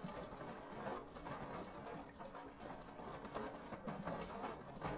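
Rain pattering on a car's roof and windscreen, heard from inside the car as an irregular spatter of drops.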